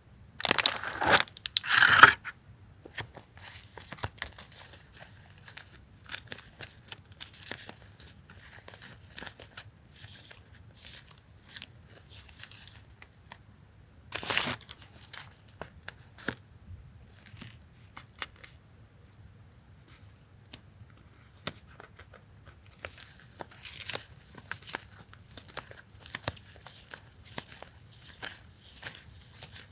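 Paper and plastic packaging of journaling stationery being handled and torn open: two loud rips near the start and one about halfway, with light rustling, crinkling and small clicks between.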